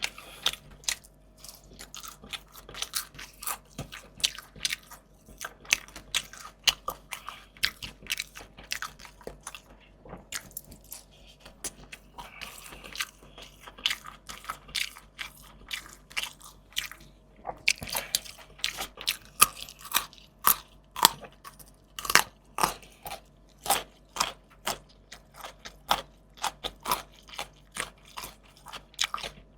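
Close-miked eating sounds: a person biting and chewing crunchy food, fried fish and fresh raw vegetables, in quick irregular crackling crunches that grow louder and denser about halfway through.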